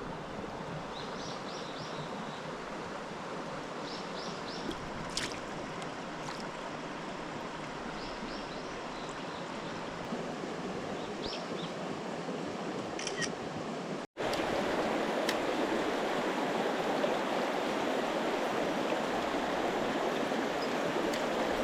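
Mountain stream rushing steadily, with a small bird giving short bursts of three or four high notes every few seconds. About two-thirds of the way through the sound cuts out for an instant and the water comes back louder.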